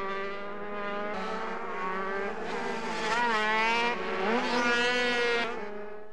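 Small 50cc two-stroke racing minibikes running at high revs through a corner. Their engine notes rise and fall as the riders ease off and open the throttle, with a dip about three seconds in and a climb a second later. The sound drops away shortly before the end.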